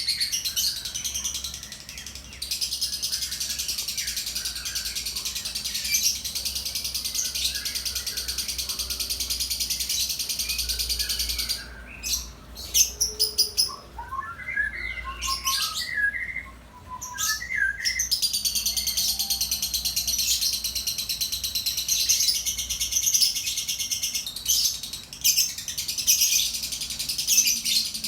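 Blue sapphire (blue safir) lovebird singing a long, unbroken rapid chattering trill. About halfway through, the chatter breaks off into shorter, lower chirps for several seconds, then resumes.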